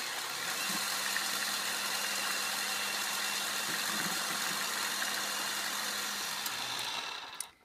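Electric mixer running steadily as it whisks hot milk into a thick foam, then switched off near the end.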